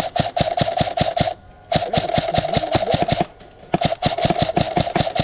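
Airsoft gun firing on full auto in three bursts of rapid, evenly spaced clacks with a steady motor whine under them. The first burst stops about a second in, and the next two follow after short pauses.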